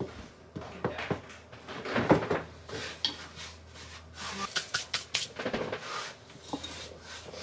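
A knife cutting a loaf of bread on a wooden cutting board: rasping sawing strokes and sharp knocks of the blade and bread on the board, with a quick run of strokes about four and a half to five and a half seconds in.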